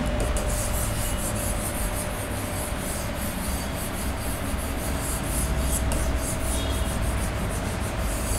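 Quick, continuous rubbing strokes across the writing board's surface as the handwritten working is wiped off.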